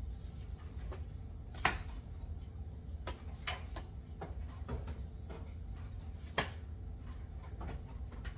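Kitchen handling sounds: scattered light clicks and knocks of containers and cupboard doors being moved, with two sharper knocks, one near two seconds in and one about six seconds in, over a low steady hum.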